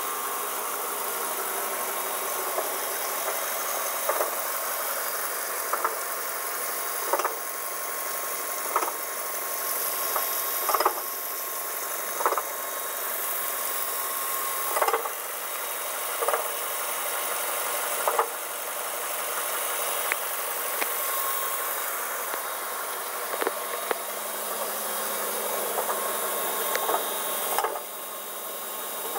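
2007 Mazda 3 engine running steadily with a sharp knock that comes at irregular intervals, every second or two. The knock comes from a failing AC compressor pulley bearing.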